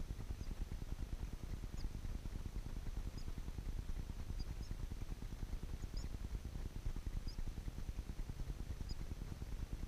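Faint, short, very high peeps, about one every second or so, from nestlings in a rufous-collared sparrow nest that also holds a shiny cowbird chick, over a steady low rumble.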